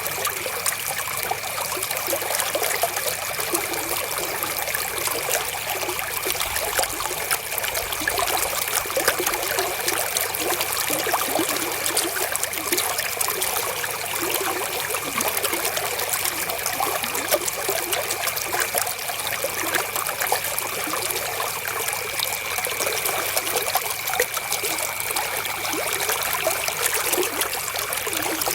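Flowing river water, a steady trickling rush with no pauses, with a faint steady high tone running beneath it.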